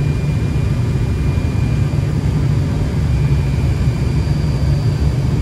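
Steady low rumble of cockpit noise in a Fokker 100 jet airliner on final approach, with a faint thin high whine above it.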